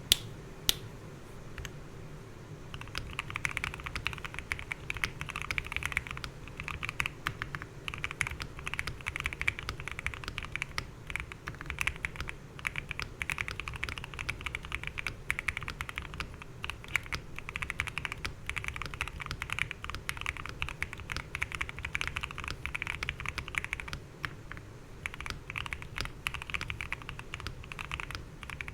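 Continuous typing on a gasket-mounted MW65 65% custom keyboard with a polycarbonate plate, foam and tape mods, PBT cherry-profile keycaps and lubed, filmed Gateron Milky Yellow linear switches. One keystroke about half a second in, then steady, fast typing from about three seconds in, with a short lull late on.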